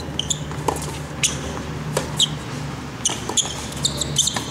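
Tennis rally on a hard court: a string of sharp pops from balls struck by rackets and bouncing, with short high squeaks of sneakers on the court surface, over a low steady hum.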